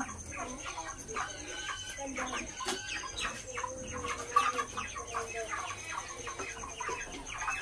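A flock of broiler chickens clucking and calling over one another, many short overlapping calls, with a faint steady high-pitched whine underneath.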